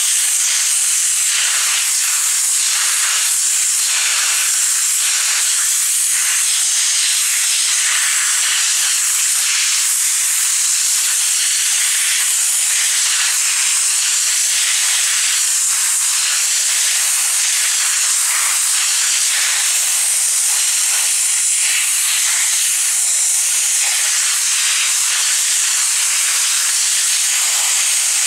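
High-pressure washer jet spraying in a steady, loud hiss onto raw mackerel and the concrete floor, blasting the fish flesh apart.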